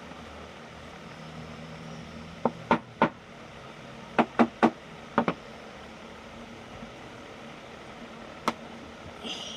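Hammer or mallet knocking on wood: sharp separate strikes in quick groups of two and three over a few seconds, then one more strike near the end, over a steady low hum.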